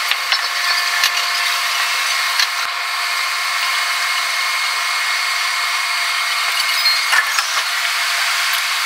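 Electric train running noise heard from the driver's cab of Tobu Tojo Line set 51005, sped up sixfold: a steady, high-pitched whirring hiss with faint steady tones and scattered clicks, a small cluster of clicks about seven seconds in.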